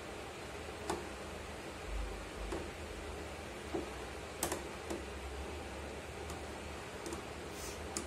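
Hand screwdriver unscrewing a screw from a refrigerator's plastic drip-tray bracket: a few light, scattered clicks of the tip turning in the screw head, over a steady hiss.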